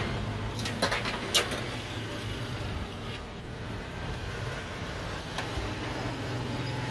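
Steady low hum of road traffic and vehicle engines, with a few sharp clicks about a second in from a spoon against plastic cups as toppings are scooped in.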